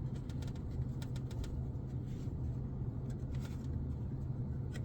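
Steady low hum with faint light clicks and taps from handling small humidifier parts, bunched in the first second and a half and again near the end.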